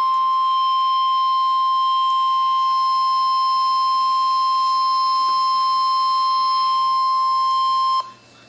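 NOAA Weather Radio warning alarm tone: a single loud, steady 1050 Hz tone announcing an emergency warning, here a severe thunderstorm warning. It cuts off abruptly near the end, leaving faint radio hiss.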